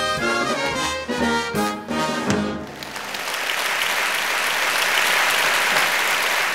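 Live show band music plays the last bars of a number and ends on a final hit about two and a half seconds in; a theatre audience then applauds steadily.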